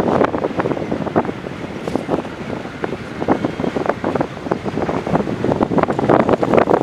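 Wind buffeting the microphone in uneven gusts, a loud, rough rumble.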